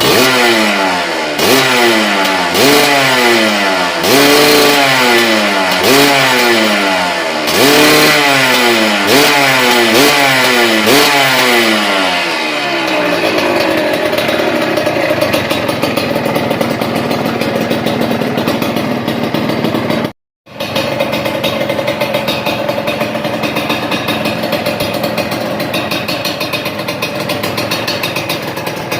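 Suzuki TS125 two-stroke single-cylinder engine through a Triton RS-5 stainless aftermarket exhaust, blipped about ten times in quick succession, each rev rising and falling, then settling to a steady idle. The sound cuts out for a split second about two-thirds through.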